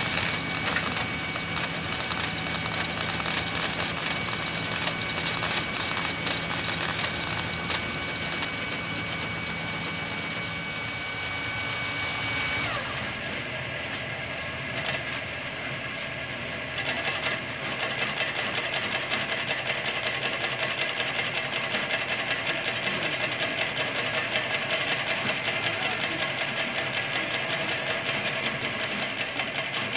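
Punched-card and line-printer equipment of an IBM 1130-type computer running, with a rapid, rhythmic mechanical clatter. A steady high tone runs under it for the first twelve seconds or so, then stops with a short drop in pitch, and the clatter comes back stronger a few seconds later.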